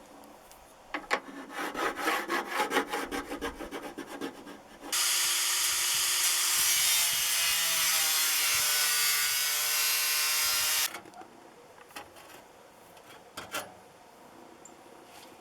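Cutting thin sheet metal from an old metal desk: first a run of quick rasping strokes, then about six seconds of a loud, steady power tool cutting through the metal, which stops abruptly; a few faint clicks follow.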